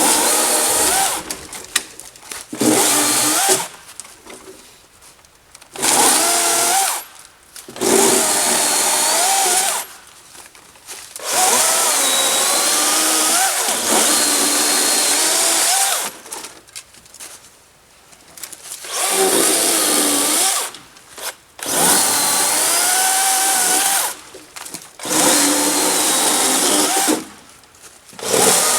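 Dewalt 60-volt brushless electric chainsaw limbing and bucking small wood in about ten short bursts. The motor whine rises and falls in pitch as it loads in the cut and stops sharply between cuts, because the chain halts as soon as the trigger is released.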